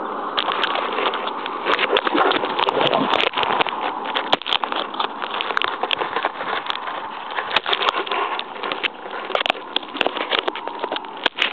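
Inline skate wheels rolling fast on asphalt during a downhill run, a steady rushing roll, with frequent sharp clicks and knocks throughout.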